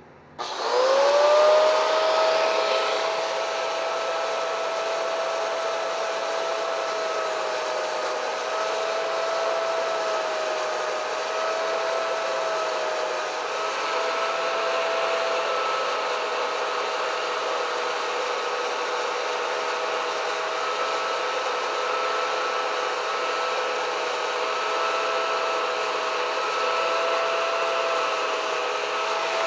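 Bosch angle grinder switched on about half a second in, its whine rising as the motor spins up, then running steadily. The whine dips slightly in pitch at times as the disc lightly grinds a small bevel into the edge of thin-walled square steel tubing.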